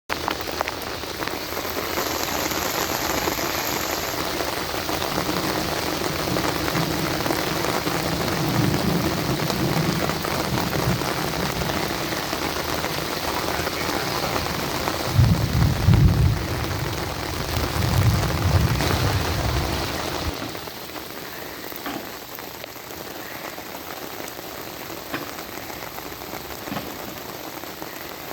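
Heavy rain falling, a loud, steady hiss, with deep low rumbles swelling twice in the middle. About two-thirds of the way through the rain noise drops to a quieter, lighter patter.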